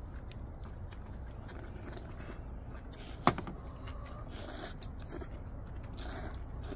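People slurping and chewing ramen noodles in short noisy bursts, with one sharp knock a little past three seconds in.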